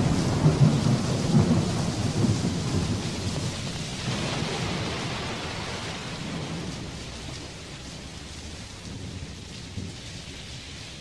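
A thunderclap's rolling rumble, loudest in the first two or three seconds with several swells, then slowly dying away under steady rain.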